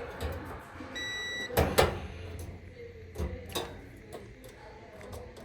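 An electronic beep held for about half a second, followed by a loud knock and a couple of lighter knocks and clicks of handling.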